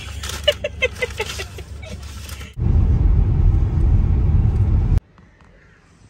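Loud low rumble of a moving car, starting suddenly about two and a half seconds in and cutting off abruptly about two and a half seconds later, after a couple of seconds of voices.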